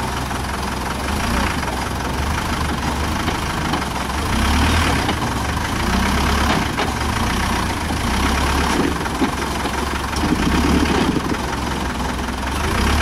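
Modified off-road 4x4's engine idling steadily, swelling a little in loudness a few times.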